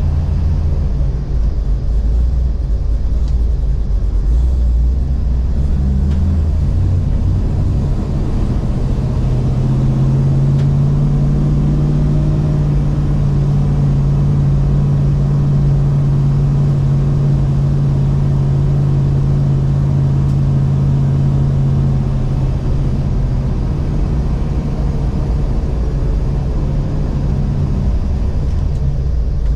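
1000 hp VF Commodore race car's engine and exhaust heard from inside the cabin: a loud, low drone that holds one steady pitch for about a dozen seconds in the middle, then wavers again. This exhaust is loud enough to break the track's 95 dB noise limit.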